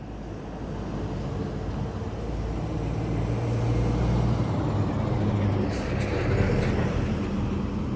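A heavy road vehicle, truck- or bus-like, passing with its engine hum swelling over several seconds, then easing a little. A few sharp clicks come about three quarters of the way through.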